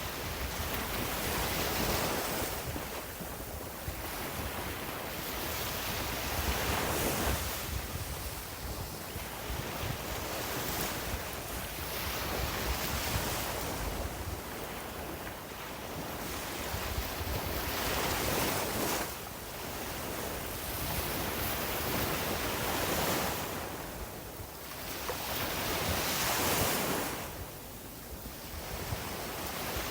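Sea waves breaking and washing up a beach, the surf swelling and ebbing every few seconds.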